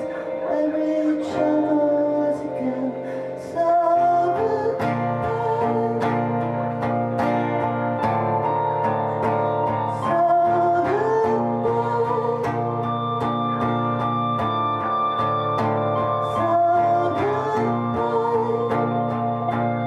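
Music with a plucked guitar and a singing voice, the low accompaniment filling out about four seconds in.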